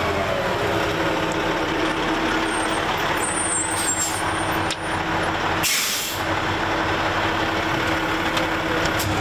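Heavy truck engine running steadily close by, with one short hiss about six seconds in, such as an air brake releasing.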